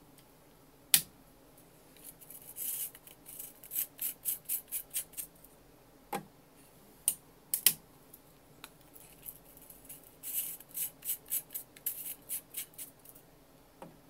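3D-printed PLA desiccant containers being handled and set on a printer's textured build plate: two runs of quick, light plastic clicks and scrapes, with a few sharper knocks between them.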